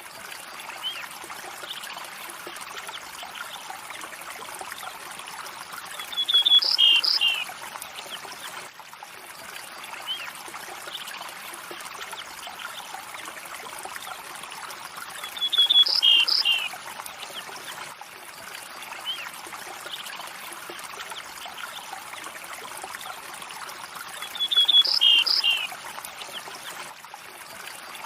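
A river or stream flowing steadily. Over it, the same short bird call, a quick run of notes then a few falling chirps, comes three times about nine seconds apart and is the loudest sound.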